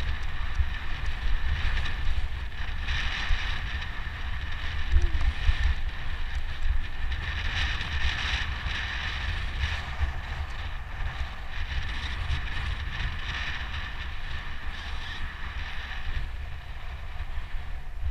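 A mountain bike rolling along a dirt singletrack, with a steady buzz of tyres and drivetrain. Heavy wind rumble on the camera microphone runs under it.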